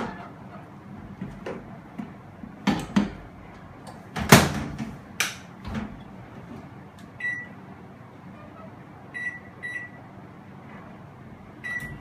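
Plastic cooker knocking as it is set into an LG microwave oven, then the oven door shut with a sharp clunk about four seconds in. After that the keypad beeps once, then twice, then once more near the end as a two-minute heating time is set.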